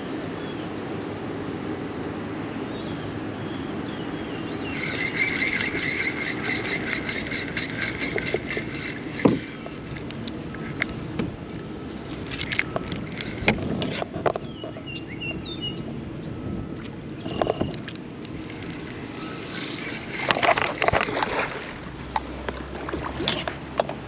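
Spinning fishing reel being cranked, whirring with fast, even clicking for about five seconds, then scattered knocks and clatter of tackle and paddle against the plastic kayak, over steady wind and water noise.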